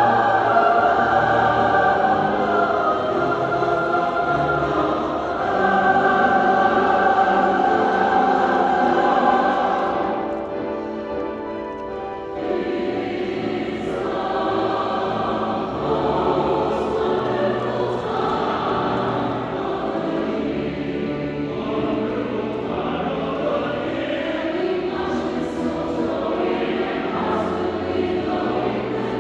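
A choir singing sustained, harmonised lines, dipping to a softer passage about ten seconds in before the full sound returns.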